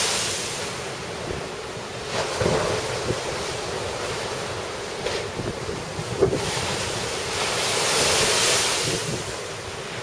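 Storm surf heaving and breaking against a stone seawall, with strong wind buffeting the microphone. The rush swells near the start and again around eight seconds in, with a few short sharp hits, the loudest about six seconds in.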